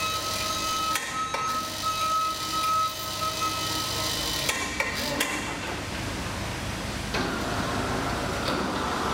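Electric overhead hoist whining steadily as it moves a suspended steel coil, the whine stopping about four seconds in, then a few sharp metallic clanks from the coil and lifter. A steady machinery hum follows near the end.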